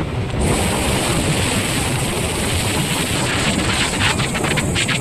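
Wind rushing over the phone's microphone from a Yamaha FZ 150 cc motorcycle at speed, with the motorcycle running under it. A steady higher hiss joins about half a second in.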